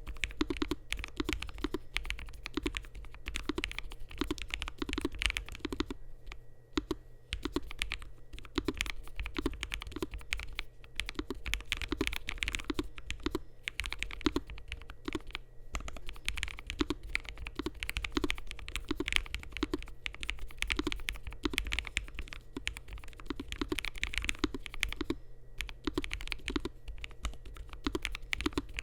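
Continuous typing on a Lofree Flow mechanical keyboard with Kailh Ghost linear switches, PBT keycaps and an FR4 and polycarbonate plate, with gasket mount. Quick keystrokes in a steady flow, broken by a few brief pauses.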